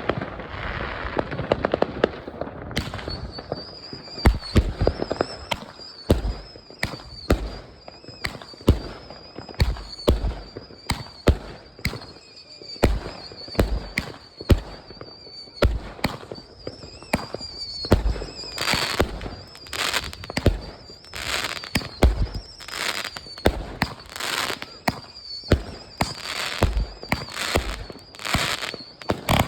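Fireworks going off in quick succession: sharp bangs and cracks, several a second, with a thin high whistle running under them from about three seconds in.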